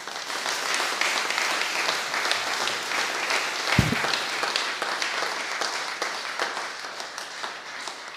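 Audience applauding, dense clapping that thins out toward the end, with a single low thump a little under four seconds in.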